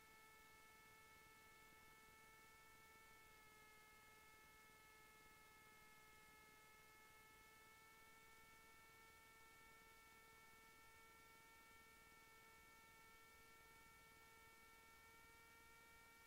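Near silence with a faint steady hum made of several evenly spaced tones.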